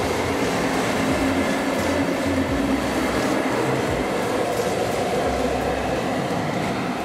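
Electric locomotive running light along the tracks: a steady rumble of wheels on rail with the hum of its running gear.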